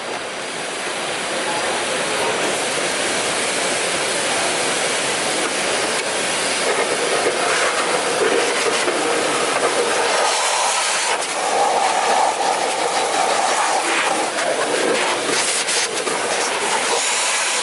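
A hard jet of air blowing dust and debris out of the Miele Blizzard CX1's bagless dust container and filter to clean it: a loud, steady rushing hiss that swells and eases as the air is played over the parts.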